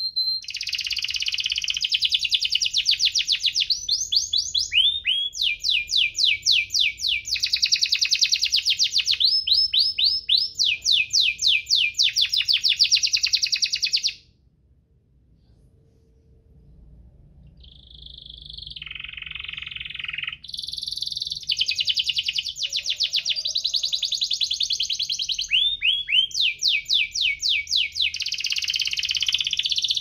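Domestic canary singing in long, fast rolled trills mixed with chirps and quick rising sweeps. About halfway through it stops for a few seconds, gives a few softer notes, then goes back into its rolls.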